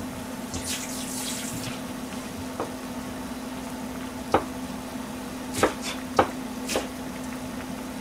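Dashi broth with tofu simmering in a pan: faint bubbling with a few sharp pops, over a steady low hum.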